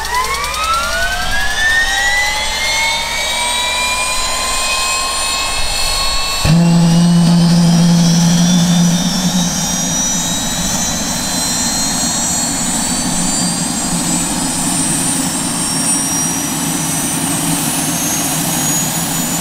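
Turbine helicopter starting up: the turbine whine climbs in pitch and levels off over the first several seconds. About six and a half seconds in, a loud steady low hum comes in abruptly, and the whine keeps rising slowly as the engine and rotor spin up.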